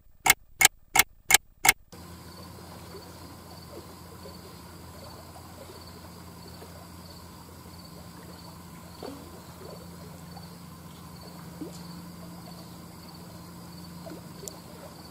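Quiet outdoor lakeside ambience: an insect trilling steadily in a fast, even pulse over a faint low wash of wind and water. In the first two seconds there are six sharp clicks, evenly spaced about a third of a second apart.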